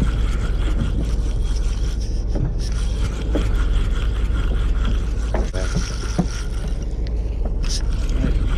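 Charter fishing boat's engine running steadily under a deep rumble, with faint scraping and distant voices aboard about halfway through.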